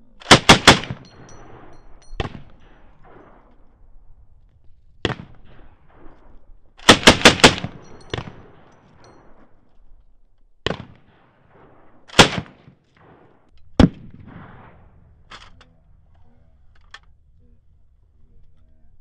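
An M249 light machine gun (5.56 mm) firing two short bursts of about four rounds each, one near the start and one about seven seconds in. Single gunshots come at irregular gaps between and after the bursts, the last ones fainter, and each report trails off in a short echo.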